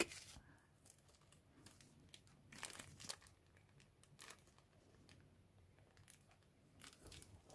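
Faint crinkling of a clear plastic kit bag as it is handled and flexed, with a few brief rustles about three seconds in and again near the end; otherwise near silence.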